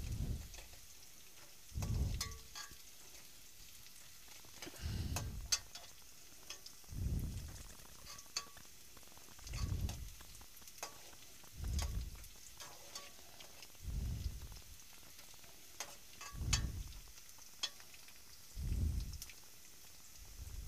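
Sliced onions and chillies frying in oil in an aluminium pot, sizzling, while a slotted spoon stirs them with a dull scraping stroke about every two seconds. The onions are still browning, not yet turned light pink.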